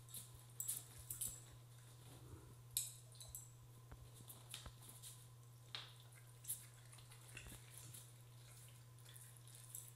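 Faint, irregular clicks and ticks from a dog moving around at its metal bowls on a wooden floor, over a steady low hum.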